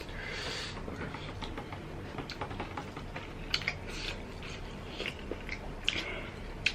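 Close-up chewing of crunchy fried snacks, with scattered crisp crunches, several in quick succession about halfway through and near the end.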